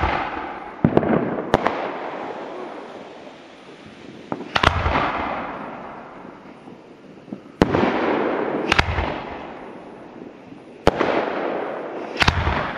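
Aerial fireworks bursting overhead: about eight sharp bangs, some in quick pairs, each trailing off over a couple of seconds.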